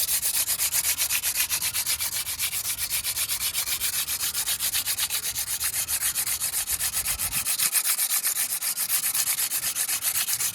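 150-grit sandpaper rubbed hard back and forth across a bicycle disc brake rotor in quick, even strokes, several a second. The rotor is being scuffed to remove oil contamination that was making the brake noisy and weak.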